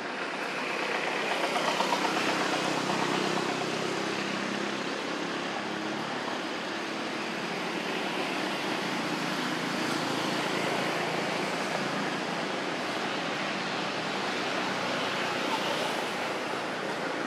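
Road traffic noise, swelling about two seconds in as a motor vehicle passes, then a steady rush of traffic.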